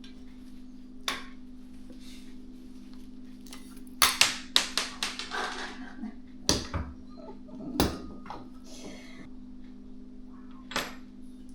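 Sharp metallic clicks and clinks from hand tools working at the gas oven's stuck igniter screws, with a quick run of clicks about four seconds in and single ones scattered after, over a steady low hum.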